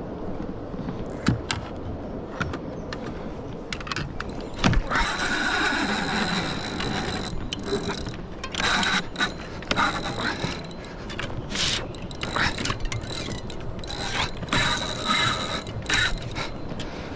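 Fishing reel's drag ratcheting in several bursts as a hooked catfish pulls line off, mixed with sharp knocks and clicks from handling the rod and reel.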